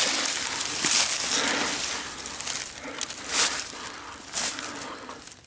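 Dry fallen leaves crunching and rustling as a leather-gloved hand works among them at a hawk's kill. There are several louder crunches, about one, three and four and a half seconds in.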